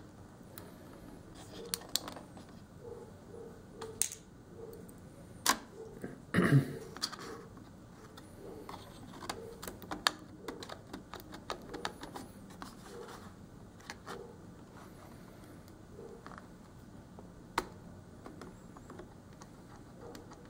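Irregular small clicks and taps of plastic and metal as a laptop motherboard is worked free of its plastic case with a small screwdriver and fingers. A louder cluster of knocks comes about six and a half seconds in.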